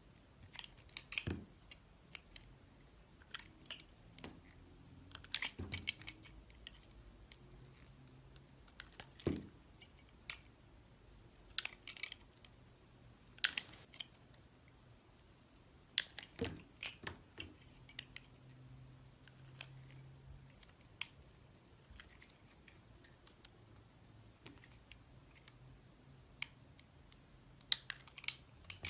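Sparse crisp crackles and clicks, a few close together and then a pause of a second or more, from a crunchy material being cut or pressed by hand.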